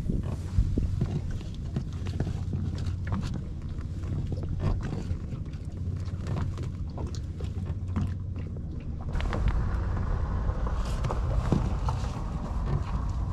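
Small boat's two-stroke outboard motor running steadily under a run of irregular knocks and clatter; a rushing hiss joins about nine seconds in.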